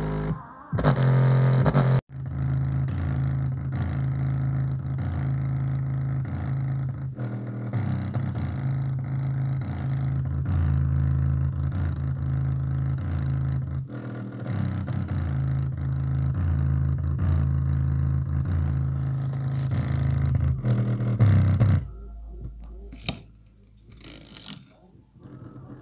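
A bare home-theatre subwoofer driver plays a bass test track: loud, deep bass notes that change every second or so, with the cone moving through a large excursion. The bass cuts out sharply near the end.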